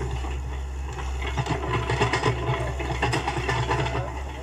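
IHI tracked excavator's diesel engine running steadily, with clanking and rattling from the working arm and bucket as it handles soil. The rattling is busiest in the middle.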